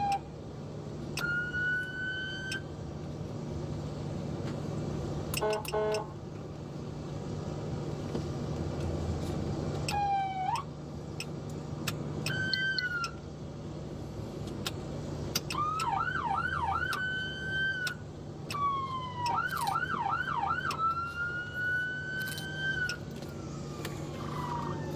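Police car's electronic siren sounded in short bursts: single rising and falling wail sweeps, and around the middle two runs of fast yelp warbling at about three to four cycles a second, ending on a long rising tone. A steady low hum of the patrol car runs underneath.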